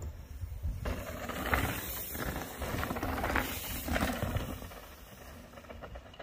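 Wind buffeting the microphone over the rolling noise of mountain bikes on a dirt trail, with a rough rushing hiss swelling about a second in and fading near the end.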